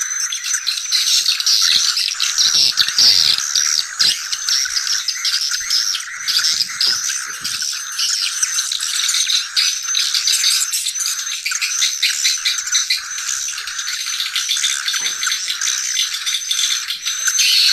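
A flock of swiftlets twittering continuously, a dense stream of high-pitched rattling chirps with short repeated whistled notes.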